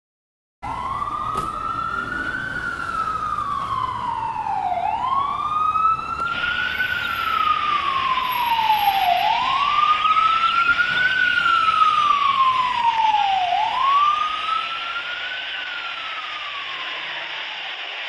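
A siren wailing, its pitch climbing and then sliding slowly down again in four cycles of about four and a half seconds each, starting suddenly just after the beginning and fading on the last fall. A steady hiss comes in about six seconds in and carries on under it.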